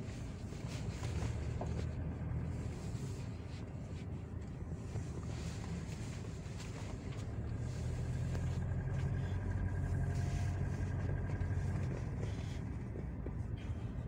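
Mitsubishi Pajero Sport driving slowly, heard from inside the cabin: a steady low engine and road hum that grows somewhat louder in the second half.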